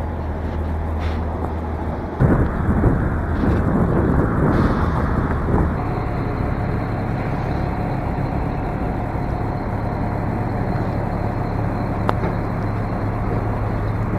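City street traffic noise: vehicles passing over a steady low hum, with a louder rush of noise starting suddenly about two seconds in and easing after a few seconds.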